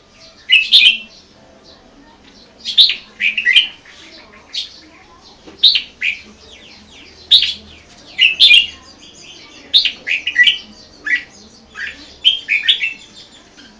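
Red-whiskered bulbul singing: short, quick whistled phrases of falling notes, repeated about every one to two seconds.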